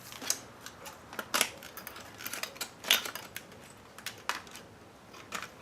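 Irregular small clicks and taps of metal and plastic parts being handled while a car CD/cassette receiver is taken apart, with a few sharper clicks in the middle.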